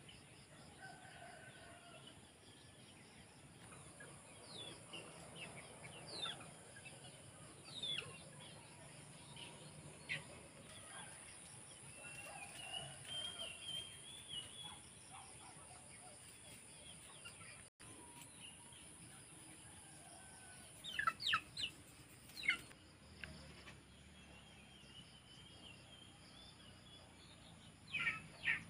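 Faint rural ambience: a steady high insect trill under scattered bird chirps and calls, with chickens clucking. Quick runs of sharp chirps stand out about two-thirds of the way through and again near the end.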